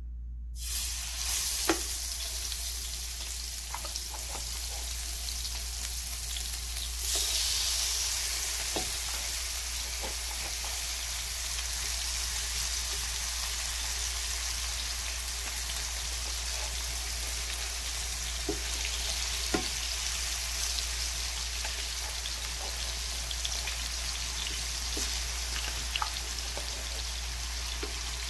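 Marinated fish strips sizzling as they fry in hot oil in a nonstick pan. The sizzle starts about half a second in as the fish goes into the oil and gets louder about seven seconds in. A slotted spatula clicks against the pan now and then.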